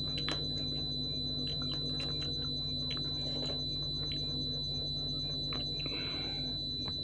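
Hand-eating sounds of dhido and chicken curry: scattered short wet clicks and smacks of chewing and of food being picked up with the fingers. A steady high-pitched whine and a low hum run underneath.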